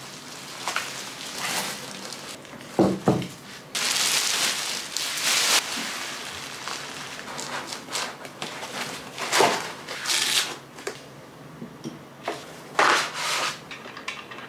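Packing material being handled and pulled apart during unboxing: rustling and crinkling in repeated surges, with a few short knocks.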